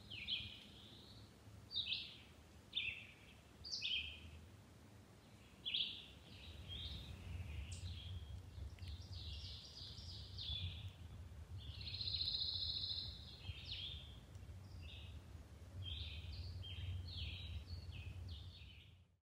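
Several woodland birds singing, with short chirps and a buzzy trill about two-thirds of the way through, over a faint low rumble that grows from about a third of the way in.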